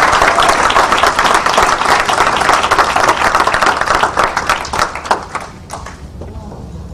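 Audience applauding: dense clapping that thins out and dies away about five to six seconds in.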